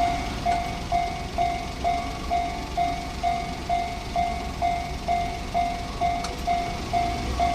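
Japanese railway level-crossing warning bell ringing in an even, repeated two-beats-a-second "kan-kan" tone, the alarm that sounds while the crossing is closed for an approaching train.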